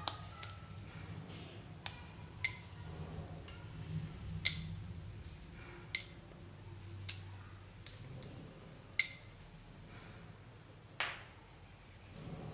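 Small plastic toy animal figures dropped one at a time into a glass bowl of soapy water, each landing with a sharp click. There are about nine clicks, a second or two apart, over a faint low hum.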